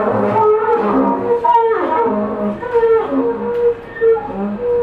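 Improvised live music in long held notes, one after another with short gaps, and a falling slide in pitch about a second and a half in; a double bass is among the instruments playing.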